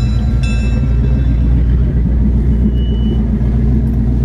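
A vehicle engine running with a low, steady rumble.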